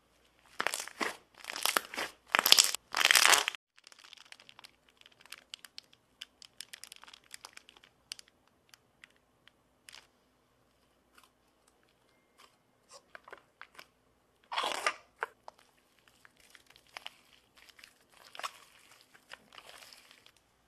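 Thick slime being pressed, folded and stretched by hand, with short popping and clicking sounds. Four loud bursts come close together in the first few seconds, then scattered small pops, another loud burst about two-thirds through, and a cluster of pops near the end.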